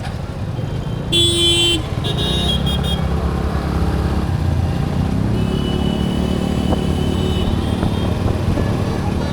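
Motorcycle riding through city traffic: the steady low rumble of the Kawasaki Ninja 300's parallel-twin engine and road noise. About a second in, a vehicle horn sounds once for under a second, the loudest sound, followed by a few short, higher beeps.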